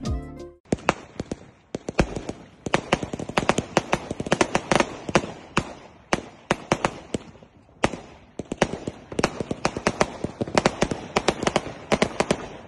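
Aerial fireworks going off: a rapid, irregular string of sharp bangs and crackles, several a second. They thin out briefly a little past the middle, then pick up again.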